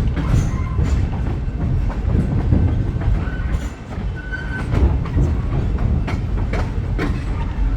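Train running on the rails: a steady low rumble with irregular clanks from the wheels and cars, and a couple of short high squeaks about halfway through.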